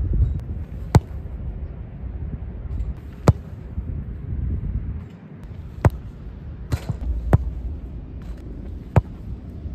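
Footballs struck hard with the foot on artificial turf: about five sharp thuds a second or two apart, with a low wind rumble on the microphone.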